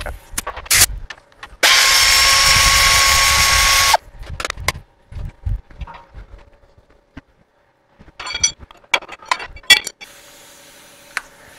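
An impact wrench runs in one steady burst of about two and a half seconds, spinning off a leaf-spring U-bolt nut, with a steady whine through it. Sharp metallic clinks of tools and parts follow, bunched near the end.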